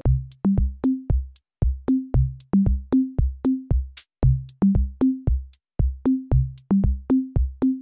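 Background music: a drum-machine beat of steady, even hits with a deep kick and a short pitched note on most beats.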